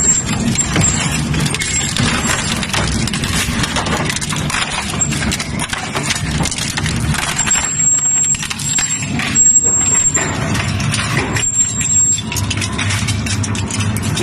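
Twin-shaft shredder running with a steady low motor hum while its hooked cutter discs crush and tear plastic containers, with dense cracking and snapping throughout. A thin high whistle comes and goes in the second half.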